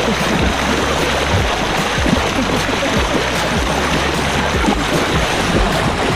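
Steady rushing, splashing water, a dense continuous wash of noise with irregular small splashes through it.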